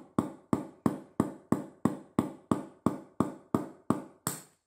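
Hammer striking a cement nail against the bottom of a glass vase to punch a drainage hole, steady blows about three a second, each with a short ringing tone from the glass. The last blow, near the end, is sharper and brighter than the rest.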